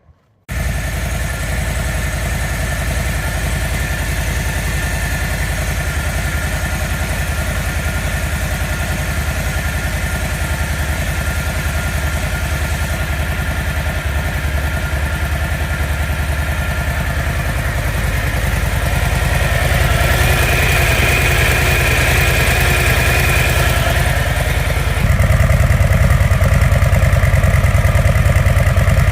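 Harley-Davidson Low Rider ST's Milwaukee-Eight 117 V-twin idling through its exhaust with a steady pulsing beat. The sound cuts in abruptly just after the start, and the low rumble steps up suddenly about 25 seconds in.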